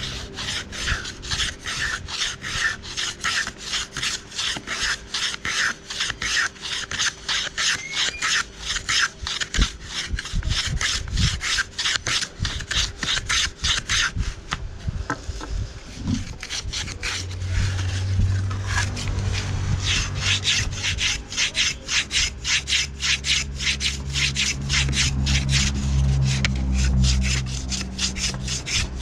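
Wood being filed by hand in quick, even back-and-forth strokes, about two to three a second, easing briefly around the middle. A low hum comes in during the second half.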